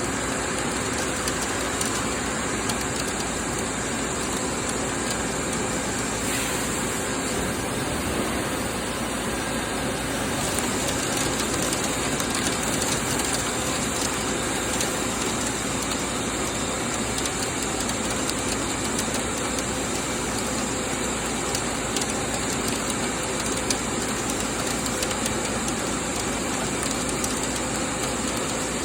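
Doosan PUMA GT2600 CNC lathe running a cut on a SUS316 stainless steel flange. It makes a steady, even machining noise with faint steady hums underneath.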